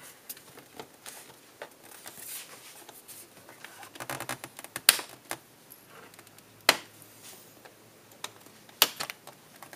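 Plastic snap tabs of a Samsung SyncMaster 2493HM monitor's rear panel cracking loose from the front bezel as the panel is pried up. Scattered sharp clicks and snaps, with a cluster about four seconds in and single loud snaps near five, seven and nine seconds.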